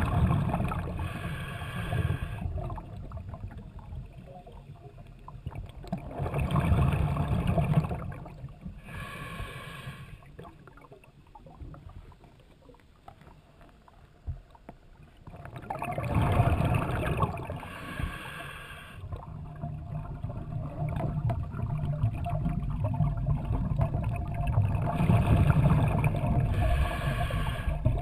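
Underwater, a scuba diver breathes out through the regulator: four loud bursts of exhaust bubbles about nine seconds apart, each coming in two pulses, with quieter stretches between.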